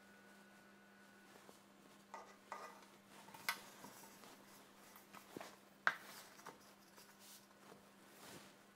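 Quiet handling sounds: a kitchen towel rustling, and a few light clinks and knocks of a metal baking pot against a glass bowl as the two are fitted together and turned over. The sharpest knocks come about three and a half and six seconds in.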